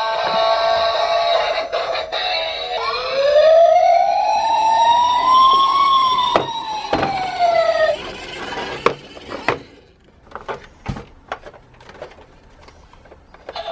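Background music, then a single police-siren wail that rises for about three seconds and falls over about two, followed by scattered clicks and taps.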